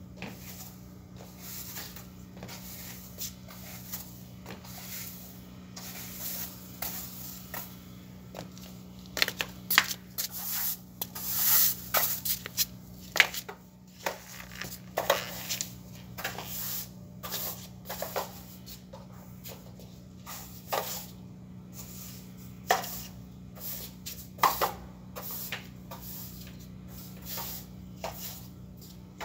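Broom bristles sweeping a hard floor in short, irregular scratchy strokes, loudest and most frequent around the middle. A steady low hum runs underneath.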